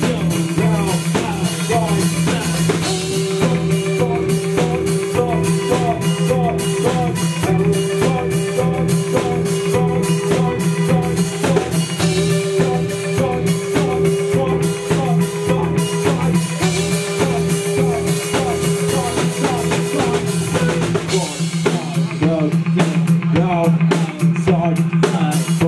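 Live rock band playing: a drum kit keeps a fast, steady beat under electric guitars and bass, with long held notes over the top. Near the end the low drums drop away while the cymbals and guitars carry on.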